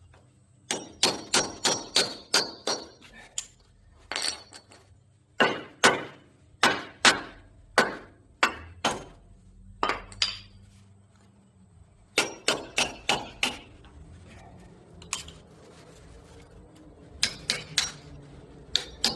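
Hammer blows struck through brass onto the steel PTO shaft housing of a John Deere 1020 tractor, driving it loose. The sharp, ringing metal strikes come in runs of several quick blows, with pauses between the runs.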